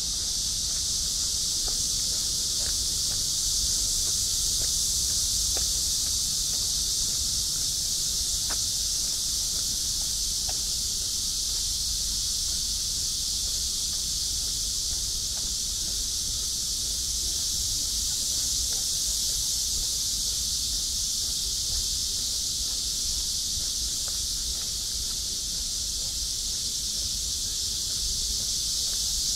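Steady, high-pitched chorus of insects that never lets up, over a low rumble.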